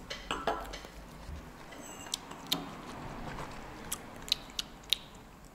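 Close mouth sounds of someone tasting a sip of a drink: lip smacks and tongue clicks, a string of sharp clicks at irregular intervals.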